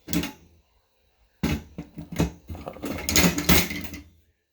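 Small metal hand tools being handled: a click, then about a second and a half in a run of knocks and clinks as tools are moved around and set down.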